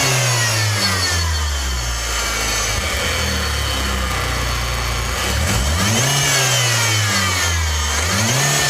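Volkswagen Gol G5 engine being revved: it drops back from a rev at the start, then is revved up twice more, about six and eight seconds in, with a high whine that rises and falls with engine speed. This is the strange noise, which may come from the belt rather than the wheel.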